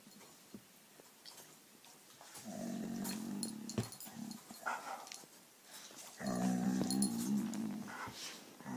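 A Dalmatian and a King Charles spaniel play-fighting, with low growls in two long stretches, about two and a half seconds in and again about six seconds in, and a third starting near the end.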